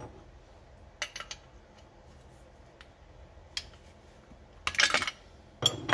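Metal clicks and clinks of an 11/16 wrench being handled and fitted onto the fitting of a gravity-feed spray gun's cup: a few scattered clicks, a quick cluster of clatter a little before the end, then a sharp clink near the end.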